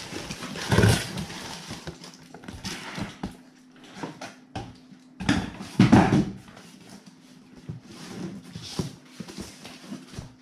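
Cardboard packaging being handled: a shipping box and the boxed impact wrench inside it slid, lifted and set down, with rustling, scraping and small knocks. The loudest scrapes come about a second in and around six seconds.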